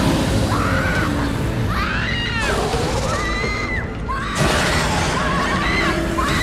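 Horror film soundtrack: a string of high, wailing cries, each rising and falling over about half a second, over music and a dense low rumble.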